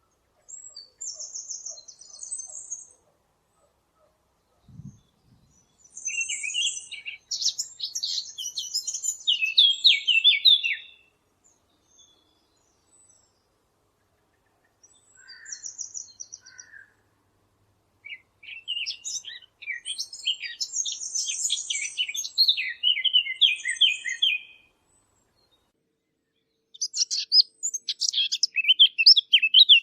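A Sylvia warbler (fig bird) singing: fast, varied warbling phrases of a few seconds each, separated by short pauses.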